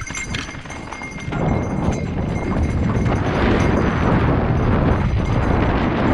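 Wind rushing over an action camera's microphone, mixed with mountain bike tyres rolling over dirt and loose rock, as the bike picks up speed downhill. It swells about a second in and stays a loud, steady roar.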